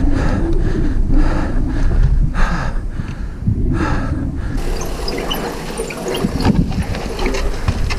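Wind buffeting an action camera's microphone as a low, gusting rumble. About four and a half seconds in, the sound changes to a scatter of small clicks and knocks from a mountain bike rolling over rocky trail.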